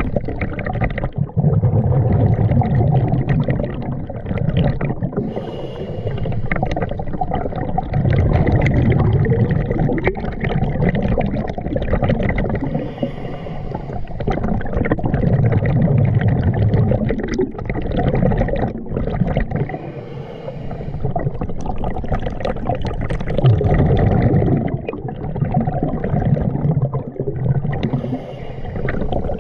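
A scuba diver breathing through a regulator underwater, cycling about once every seven seconds: a short hiss of inhalation, then a longer rumble and gurgle of exhaled bubbles, four breaths in all.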